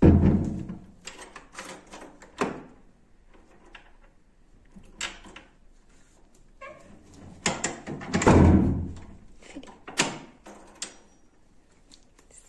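Metal lever door handle and lock clicking and rattling as a child works the handle and lock. There are sharp knocks throughout, and heavier thuds at the very start and again about eight seconds in.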